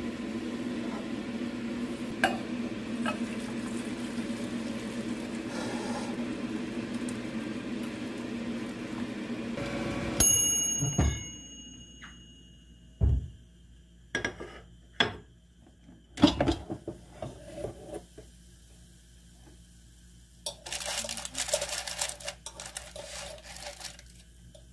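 A pot of broth boiling steadily on a gas stove, then a metal-and-glass pot lid clinks sharply and rings about ten seconds in. After that come a few knocks and clunks from an air fryer basket, and near the end a rustling scrape of metal tongs on parchment paper as a fried vegetable tempura fritter is lifted out.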